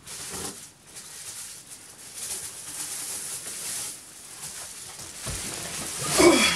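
Plastic shopping bags rustling and crinkling as they are carried and handled, with a short vocal sound falling in pitch, the loudest moment, about six seconds in as the bags are swung up.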